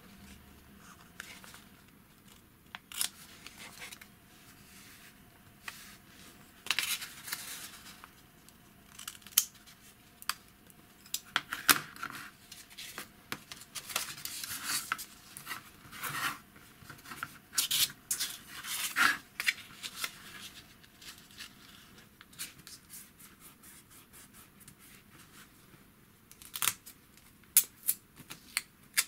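Scissors snipping thin paper, with paper rustling and creasing as strips are folded and pressed by hand: irregular short, sharp snips and scratchy rustles with pauses between.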